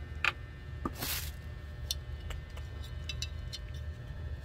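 Handling noises from unboxing a mini hot pot cooker: a sharp click just after the start and a short rustle about a second in, then scattered light clicks and taps as the power cord, plug and packaging are handled. A steady low hum runs underneath.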